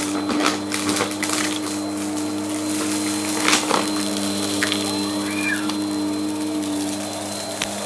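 Bissell CleanView upright vacuum cleaner running steadily on a rug, with scattered clicks and rattles as confetti and sequins are sucked up.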